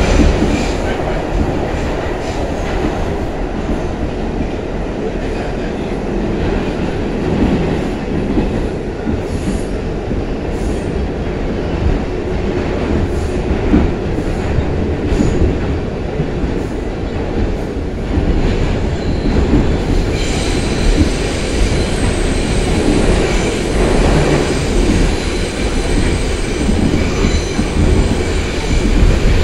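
New York City Subway 6 train running at speed, a loud steady rumble of wheels on rail with a few sharp clicks over rail joints. From about twenty seconds in a high, steady wheel squeal rides over the rumble.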